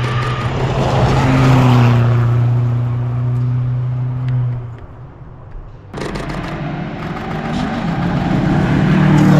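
Rally car engines passing on a stage. One car's engine gets louder to a peak about two seconds in, then fades. After an abrupt cut about six seconds in, a second car's engine approaches and grows louder toward the end.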